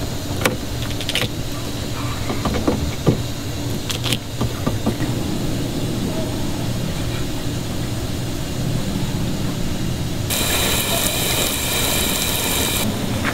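Steady low mechanical hum, with a few sharp clicks and handling noises in the first few seconds as duct tape is worked around a hose. Near the end, a loud hiss of water spraying from an outdoor spigot lasts about two and a half seconds.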